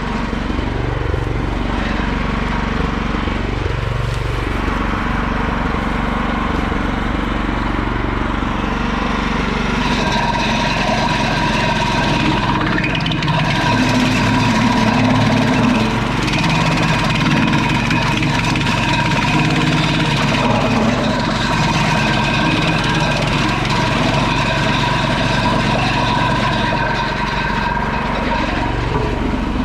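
Petrol-engine wood chipper running steadily at speed, its sound growing denser and noisier from about ten seconds in.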